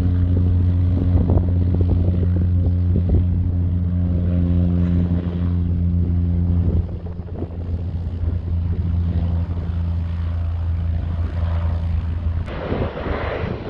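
Small propeller airplane engine running steadily with a strong low hum, easing off about seven seconds in. Near the end it cuts off abruptly into wind noise on the microphone.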